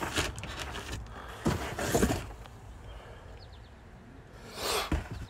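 Cardboard toy boxes being handled and shifted: soft rustling with a few knocks, about a second and a half in, at two seconds, and near the end.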